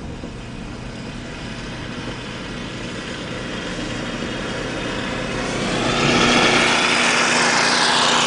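Snowblower's small engine running steadily, growing much louder about six seconds in, with a dip and recovery in pitch near the end.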